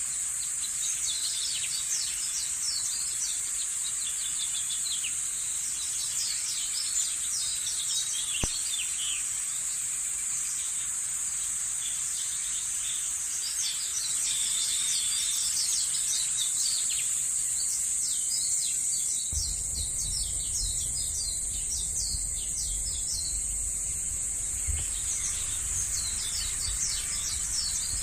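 Forest ambience: a steady high insect drone with many short bird chirps. A low rumble joins about two-thirds of the way through.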